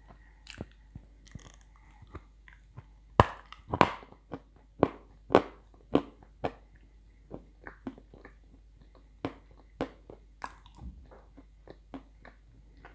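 Person biting and chewing dry chunks of edible clay: a run of sharp, irregular crunches, with louder bunches a few seconds in and again past the middle.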